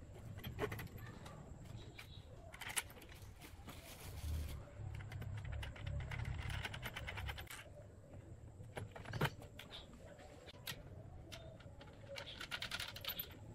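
Handling sounds as a steel bolt is pushed through pine parts and fitted with washers and a nut by hand: scattered sharp metallic clicks and short scraping and rubbing sounds.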